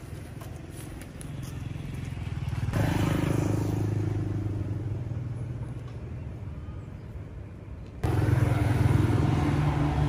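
An engine running with a steady low hum, growing louder about three seconds in, easing off, then jumping suddenly louder at about eight seconds.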